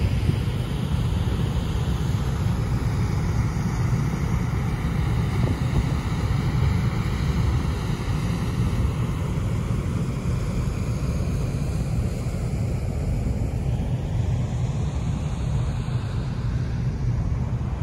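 Steady low rumble of wind buffeting the microphone, mixed with the running engine and churning wake of a passenger boat under way.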